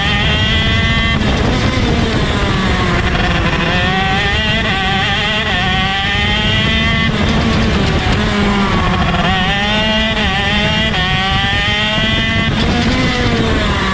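Two-stroke 125cc shifter kart engine at race speed, heard from the driver's seat. Its pitch climbs steadily for several seconds at a time, then drops sharply and falls away about a second in, around seven seconds and near the end.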